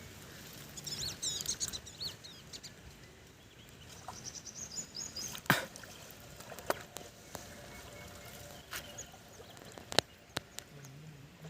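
Small birds chirping in short high calls, with a few scattered sharp clicks over a steady outdoor background.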